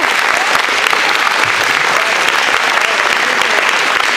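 Congregation applauding steadily, with a few voices faintly calling out.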